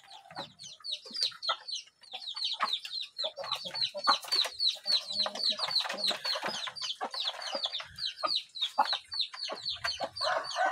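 Free-range village chickens feeding on scattered corn and rice: a fast run of short, high peeps, several a second, mixed with clucks and light pecking taps.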